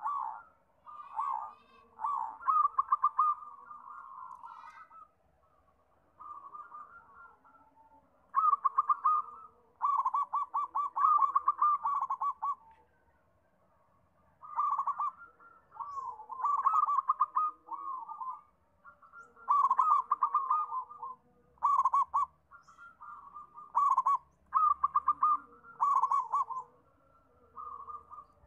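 Zebra dove (perkutut) singing: repeated phrases of quick, stuttering coos, each one to two seconds long, broken by short pauses.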